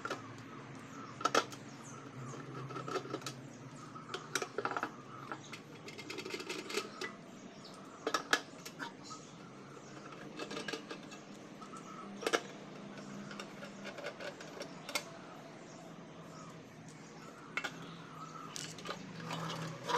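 Scattered clicks, knocks and clatter of tools and the rice cooker's metal and plastic parts being handled as it is taken apart, over a low steady hum.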